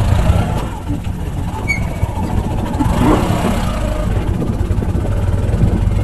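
Motorcycle running on the move, with a heavy, unsteady low rumble.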